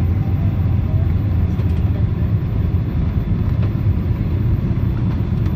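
Steady low rumble inside the cabin of a four-engine Airbus A340 airliner descending on approach: engine and airflow noise heard from a window seat.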